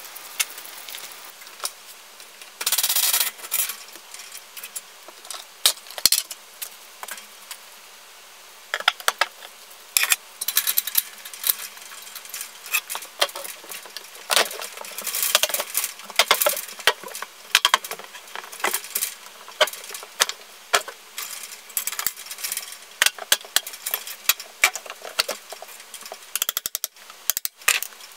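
Irregular sharp clicks and metallic knocks of hand-tool carpentry work on a wooden exterior wall, with a short burst of clatter about three seconds in, and the clicks coming thick and fast from about a third of the way through.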